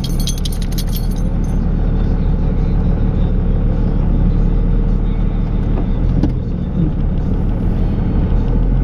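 Dodge Ram's Cummins turbo-diesel engine running steadily under load while plowing snow. A brief metallic jingling rattle sounds in the first second and a half.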